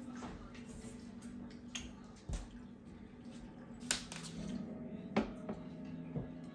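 Eating noodle soup: a few sharp clinks of spoons and chopsticks against ceramic bowls, spaced a second or more apart, over a steady low hum.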